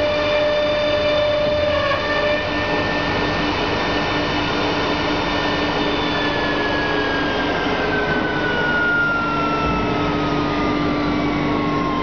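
HSD 3 kW spindle on a CNC wood router running with a steady high whine over a constant machine noise. From about halfway through, the whine glides steadily down in pitch.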